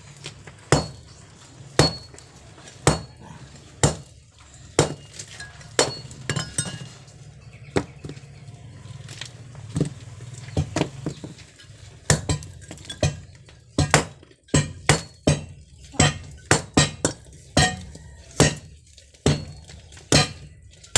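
A metal hand tool striking hard material in repeated sharp, ringing clinks during concrete work, about one blow a second at first, speeding up to about two a second around twelve seconds in.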